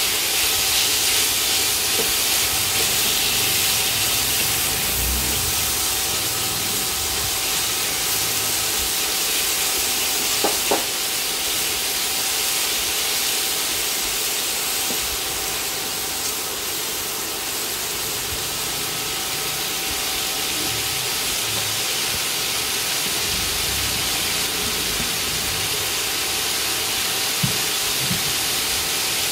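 Chayote and pork sizzling and simmering in a wok: a steady hiss, with a faint steady whine underneath and a couple of light knocks about ten seconds in.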